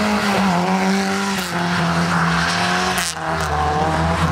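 A drifting car's engine held at high revs, its pitch wavering slightly as the car slides on snow. A short sharp click cuts through about three seconds in.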